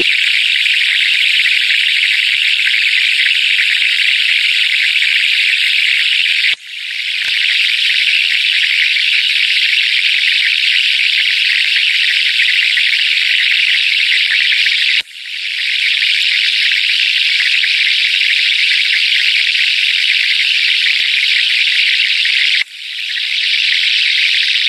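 Recorded flowing-water sound played through a Bluetooth speaker: a loud, steady, hissy rush with little bass. It breaks off for an instant and swells back three times, about every eight seconds.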